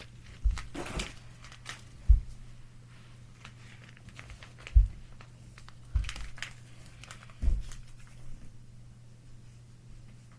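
Crinkling and handling noises from slime-kit materials, broken by about six dull knocks, the loudest a little after two seconds and near five seconds in.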